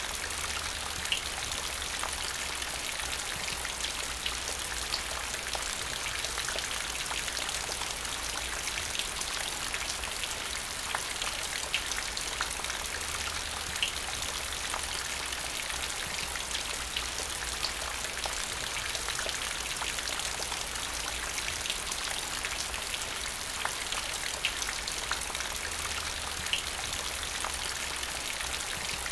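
Steady rain falling, a constant hiss with individual drops standing out as sharp ticks every second or so.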